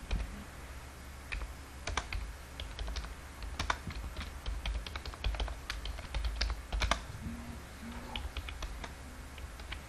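Typing on a computer keyboard: irregular keystrokes in short runs with brief pauses, over a faint steady low hum.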